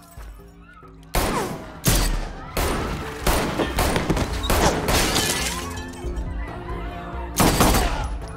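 A gunfight: about eight loud gunshots and bullet hits, irregularly spaced, starting about a second in, with shattering debris after them and a gap before a last loud shot near the end. Electronic music runs underneath.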